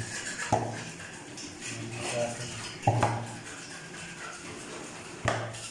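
A plastic bag rustling as bone-in pieces of meat are lifted out and set into an aluminium pot, with three sharp knocks of meat against the pot about every two and a half seconds.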